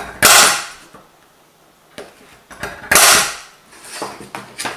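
Spring-loaded automatic centre punch fired twice against an aluminium sheet, two sharp snaps about two and a half seconds apart, marking hole centres for drilling. Lighter clicks and taps of the tool being handled come in between.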